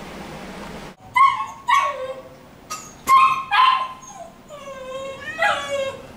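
A caged shelter animal crying: several short, high cries that each fall in pitch, starting about a second in, then a longer, wavering cry near the end.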